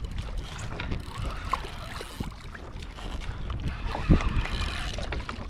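Wind buffeting the microphone and water sloshing around a kayak, with a few scattered knocks from handling on the boat.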